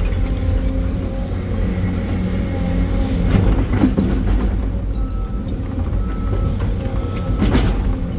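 Sany 385 excavator's diesel engine and hydraulics running under load, heard from inside the cab, with a few clunks as the bucket digs into rocky ground, about three to four seconds in and again near the end.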